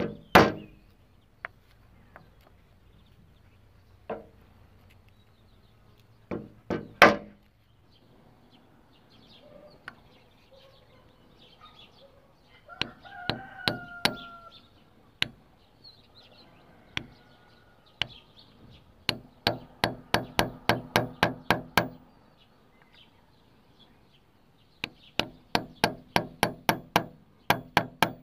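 Light hammer taps on a steel punch set against the aluminium body of a scooter carburettor, working on a pressed-in tube fitting. The taps come in quick, even runs of about five a second, after a few single louder knocks near the start and about seven seconds in.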